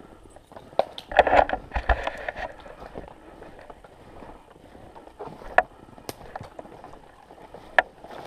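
Footsteps crunching through snow and trampled larch branches, with a dense burst of trampling and brushing about a second in, then a few sharp twig snaps.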